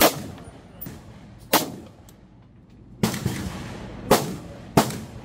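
A 5.56 AR-15 carbine with a SureFire WarComp closed-tine muzzle device fires five shots at an uneven pace, mostly a second or more apart, with the last two closer together. Each shot has a short echoing tail.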